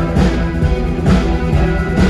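Orchestral music with a steady beat: sustained instrumental tones under strong percussion strikes, two of them about a second apart.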